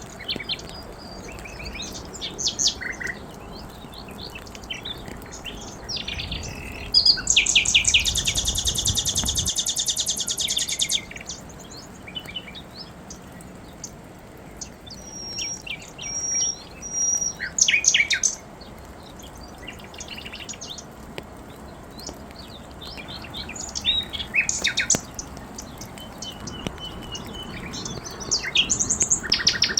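Several wild birds singing and chirping, with one loud, very rapid trill lasting about three seconds and, later, a run of short, even whistled notes.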